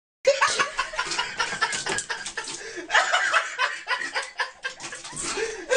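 People laughing in short, choppy bursts.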